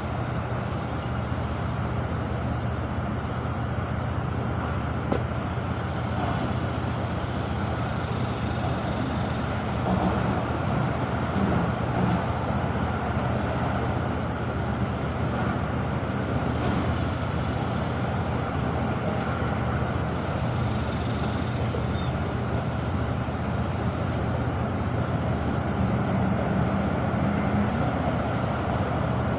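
Steady road traffic noise, a little louder from about ten seconds in.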